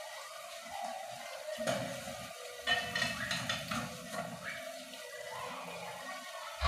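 Thick tomato sauce bubbling in a pot on a gas stove, with a cluster of wet pops and splutters between about one and a half and four seconds in.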